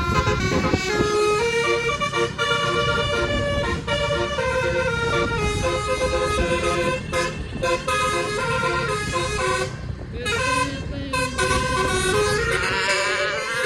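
A 9-note telolet basuri bus horn playing a tune of stepped notes, with a low rumble underneath. A warbling note comes in near the end.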